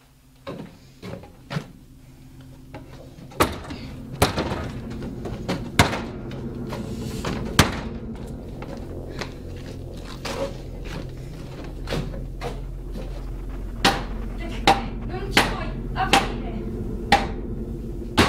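A series of sharp knocks, irregularly spaced about half a second to a second and a half apart, over a steady low drone that swells in over the first few seconds.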